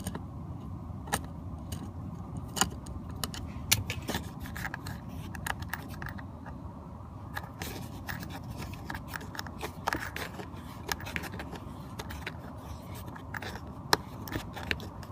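A Phillips screwdriver backs a long screw out of a BMW E36 dashboard panel, making irregular small clicks and scrapes as the bit and the screw turn, over a steady low hum.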